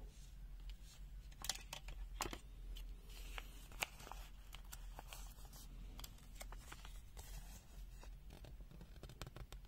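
Faint paper handling: a folded paper manual and a small printed card rustling and crinkling between the fingers, with scattered sharp clicks, the loudest a little under four seconds in.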